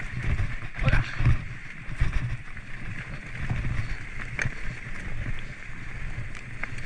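Mountain bike rolling down a dirt trail: a steady low rumble of tyres and riding noise on the bike-mounted microphone, with a few sharp clicks and knocks from the bike.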